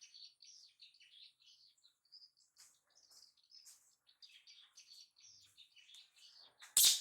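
Birds chirping, many short high-pitched chirps in quick succession, then a single loud knock near the end.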